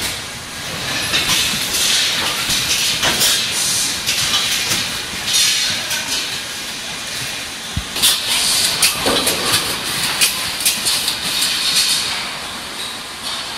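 Packaging line running: a servo cross-web labeller and its conveyor, with a steady hiss and many irregular clicks and clacks.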